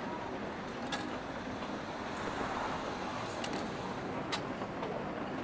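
Steady rain wash with a low background murmur, broken by a few sharp clicks: about a second in, then twice more between three and a half and four and a half seconds in.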